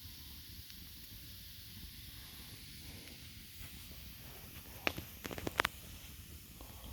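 Campfire burning with a steady faint hiss, and a quick run of sharp crackles and pops from the burning wood about five seconds in.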